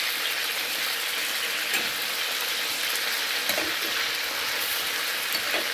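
Seasoned chicken pieces frying in hot oil in a metal pan, a steady sizzle with a few faint pops. The chicken is being browned before stewing.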